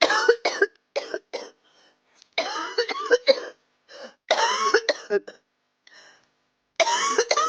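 A woman coughing hard in repeated fits, several coughs to each fit with short pauses between: the chronic coughing of someone her doctor judged to have asthma.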